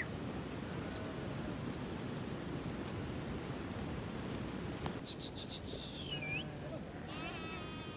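A flock of sheep and goats, with one wavering bleat near the end, over a steady rushing background noise. A couple of short high whistled notes come about five to six seconds in.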